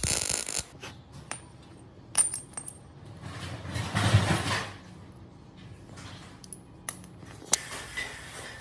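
Light metallic clinks and taps, a handful of separate strikes with a short high ring, like small metal pieces knocking together, with a brief rushing scrape about halfway through.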